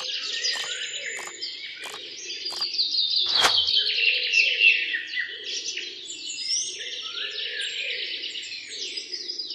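Many small birds chirping and twittering together in a dense, continuous chorus, with a few sharp clicks in the first few seconds.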